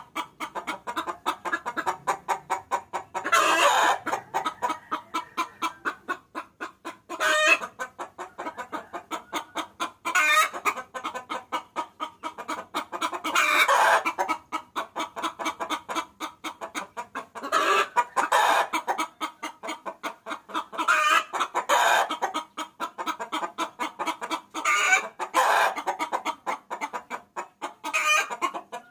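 Hen calling to cocks: a rapid, steady run of short clucks, several a second, broken every few seconds by a louder, longer cackle. This is the call used as a lure to draw males.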